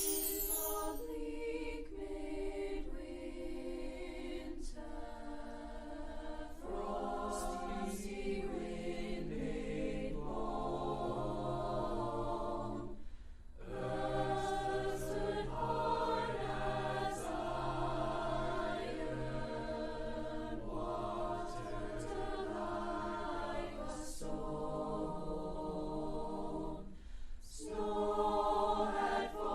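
A choir singing slow, sustained chords in long phrases, with a brief break about thirteen seconds in and another near the end.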